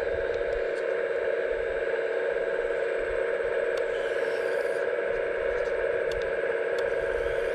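Steady whine of a radio-controlled model excavator's hydraulic pump. About four seconds in, a short rustling patter with a few clicks as soil pours from its suction-bin attachment into a model dump trailer.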